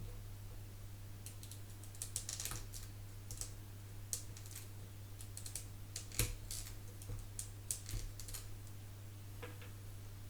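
Irregular light clicks and snaps, several in quick clusters, from cut plastic female pin-header strips being trimmed and tidied with small hand tools, over a steady low hum.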